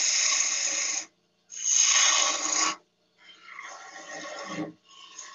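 Turning gouge cutting a spinning beech blank on a wood lathe in passes, each a loud hiss of shavings: one ends about a second in, a second follows, then two quieter, rougher passes. A faint steady hum from the lathe runs underneath.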